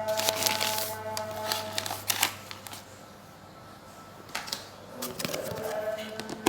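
Scattered sharp clicks and rustles of plastic food containers and bags being handled. Background music plays for the first two seconds, then drops away. A loud click comes at the very end.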